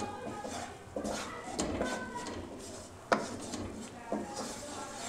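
Wooden spoon stirring and scraping butter and flour frying in a non-stick kadai, with a sharp knock of the spoon against the pan about three seconds in.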